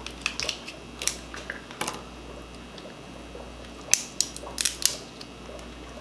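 Kitchen scissors snipping through a shellfish shell, then the shell cracking and crackling as it is pulled apart by hand: scattered sharp clicks, with a burst of loud cracks about four seconds in.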